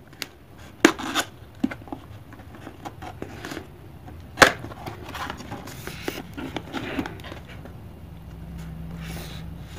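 Cardboard camera box being opened by hand: flaps scraping and rustling, with a few sharp clicks early and one loud snap about four and a half seconds in as the lid comes free.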